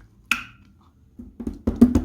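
Slime being squeezed and pressed by hand: one sharp click with a short ring about a quarter second in, then a quick run of pops and clicks in the second half.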